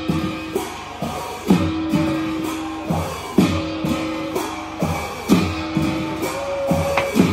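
Music with a repeating drum pattern, a strong beat about every two seconds with lighter beats between, over a held tone and plucked strings.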